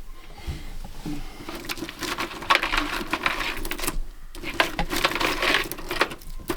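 Electric drill boring a one-inch hole into a lead keel, running with a fast rattle in two spells and a brief stop about four seconds in.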